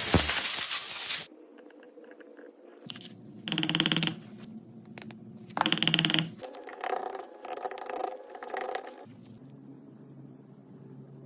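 Workshop tool noise: a loud, noisy burst lasting about a second, then two short runs of a small motorised power tool about two seconds apart, followed by lighter scraping and handling noises.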